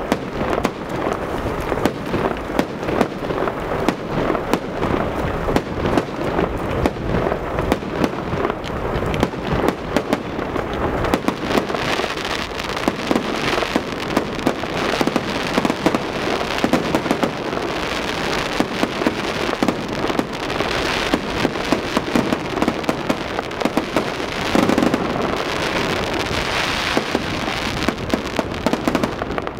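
Fireworks display: aerial shells bursting overhead in a dense, unbroken barrage of bangs, pops and crackling stars.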